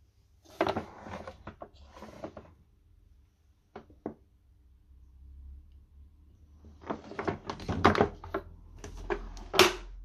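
Hard plastic knocks, clicks and rattles as a yellow Numatic Henry HVR200 vacuum cleaner is handled and tipped and its hose is fitted. They come in three bursts, the last and loudest ending in a sharp click.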